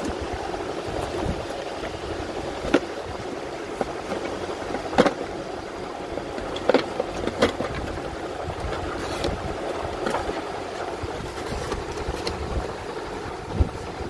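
Scattered sharp knocks and clicks from a sink and its packaging being handled, over a steady background rumble.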